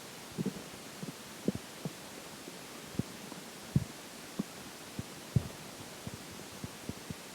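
Stomach and intestines gurgling during digestion: an irregular string of short, low pops and gurgles, the loudest about four and five and a half seconds in.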